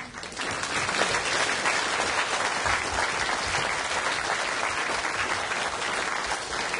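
Lecture-theatre audience applauding: a dense, steady patter of many hands clapping that builds up in the first second and tapers off near the end.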